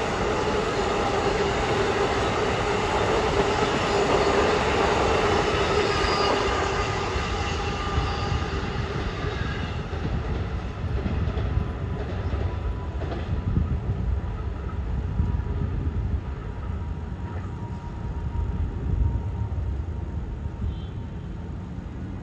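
Passenger train passing on the rails, loudest in the first half with a steady whine over the rumble, then fading to a lower rumble with a few wheel clicks as it moves away.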